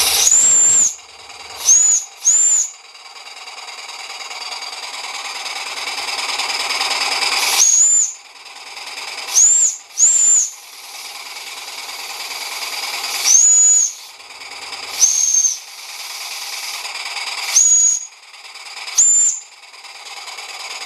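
Märklin 16051 toy steam engine's steam whistle tooted about ten times in short, high-pitched blasts, some doubled. Between them comes a steady hiss of steam that slowly grows louder.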